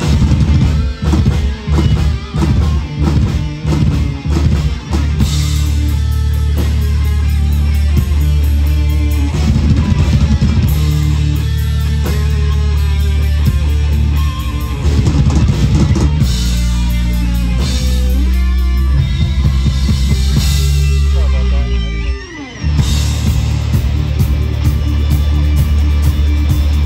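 Live rock band playing electric guitars and a drum kit. The band hits short, stop-start chords for the first few seconds, then plays steadily and loudly, with a brief break near the end.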